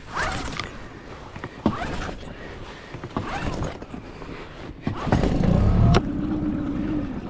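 Tohatsu 20 hp tiller outboard being pull-started: the recoil starter whirs up with each of three or four pulls about a second and a half apart. About five seconds in the motor catches with a loud burst, then settles into a steady idle.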